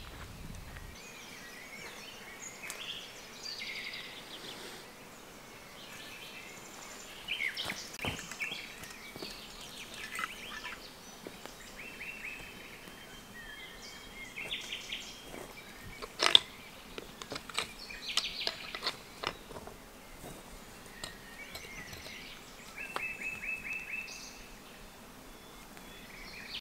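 Wild birds singing and calling in woodland: many short, varied chirps and trills over a steady outdoor background. A few sharp knocks stand out, the loudest about two-thirds of the way through.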